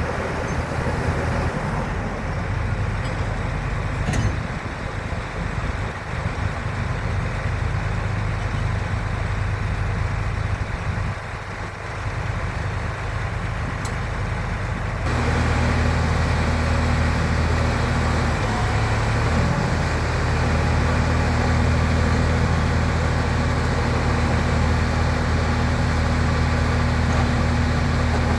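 Caterpillar hydraulic excavator's diesel engine running steadily as the machine hoists a suspended concrete panel. About halfway through the hum suddenly gets louder and heavier and holds there.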